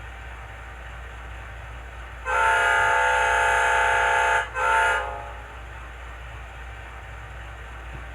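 HO scale model locomotive's ESU LokSound decoder playing a diesel locomotive air horn from its sound project S0510, recorded from a GE AC44C6M: one long blast of about two seconds, then a short blast right after. Underneath, a steady low hum from the decoder's idling prime mover sound.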